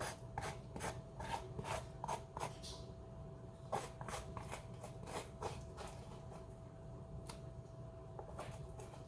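A fork scraping the cooked flesh of a spaghetti squash into strands, in quick repeated strokes for the first few seconds, then a few scattered strokes, over a faint steady hum.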